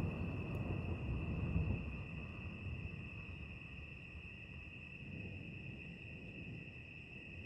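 Crickets chirping in a steady, continuous high trill. A low rumble fades away over the first two seconds.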